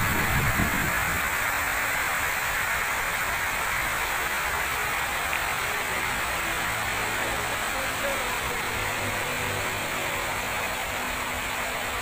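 Large public fountain's water spray hissing steadily, with a faint low rumble underneath.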